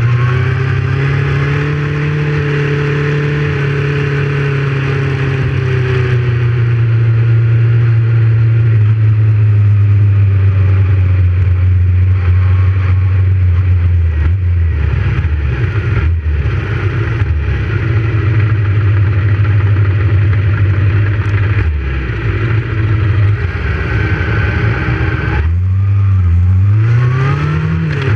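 Motorcycle engine running at a steady cruise, with wind and road noise; its pitch drops about halfway through, and near the end it accelerates through a gear change, the note rising, dropping briefly, and rising again.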